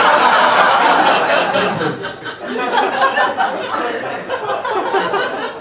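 Audience laughing at a stand-up comedy set. The laughter is loud at first and thins out about two seconds in into scattered laughs.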